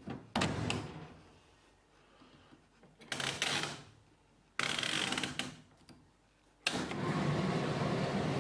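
Indesit condenser tumble dryer: a few clicks and short bursts of handling noise, then the dryer starts and runs with a steady hum from about two-thirds of the way in.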